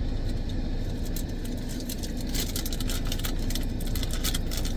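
Steady low hum of a car idling, heard from inside the cabin. A cluster of light clicks and rustling comes through around the middle.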